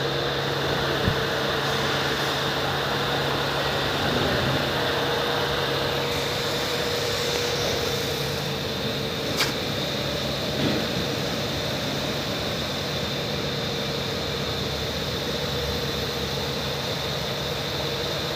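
Electric waste incinerator running while it heats up: a steady machine hum with fan-like noise and a steady high whine, broken by a sharp click about nine seconds in.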